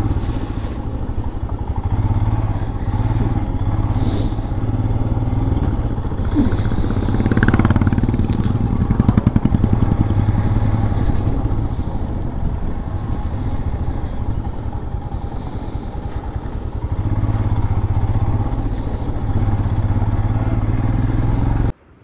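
Motorcycle engine running steadily while the bike is ridden along a rough road, heard from the rider's seat, its note swelling a little in the middle. The sound cuts off suddenly just before the end.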